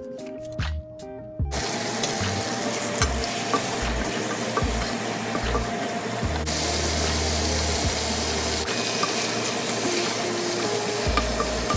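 Food sizzling in hot oil in a pan. It starts suddenly about a second and a half in and grows brighter and louder about halfway through.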